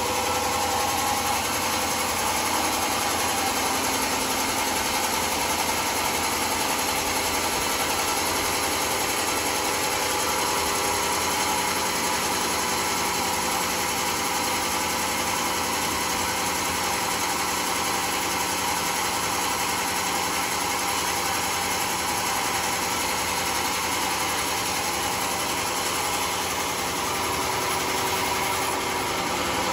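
Homemade band sawmill running steadily, the band-saw blade and its drive making a constant mechanical noise with a faint whine.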